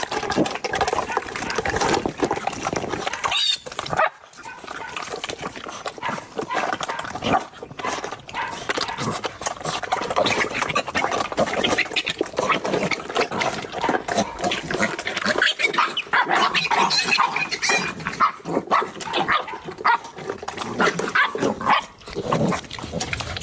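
A pig and a dog eating side by side: a busy, continuous run of wet chewing and smacking sounds.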